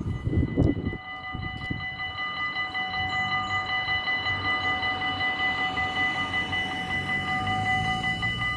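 Dutch AHOB level-crossing bells begin ringing, several electronic bells at different pitches sounding together in a fast, even pulse: the crossing's warning of an approaching train. A few low rumbles come in the first second.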